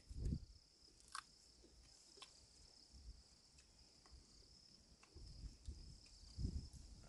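Near silence with faint, steady cricket chirring in the background, broken by a few soft clicks and brief low thumps near the start and near the end.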